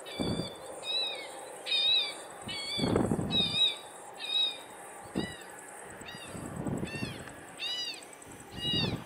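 A bird calling over and over, about a dozen short rising-and-falling calls spaced under a second apart. Under it is a steady high buzz, with a few short low rumbles in between.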